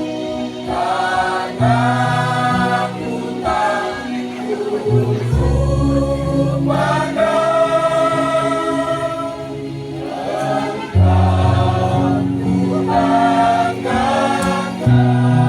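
A choir singing a song, long held notes over steady low accompanying notes that change in steps.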